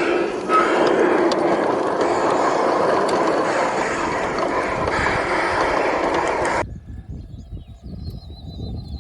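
Steady mechanical running noise that cuts off abruptly about two-thirds of the way through, leaving quieter sound with faint chirps.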